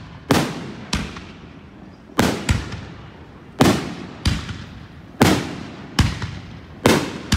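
2.5-inch 36-shot consumer fireworks cake firing its aerial shells: about nine sharp bangs, spaced half a second to a second and a half apart, each dying away before the next.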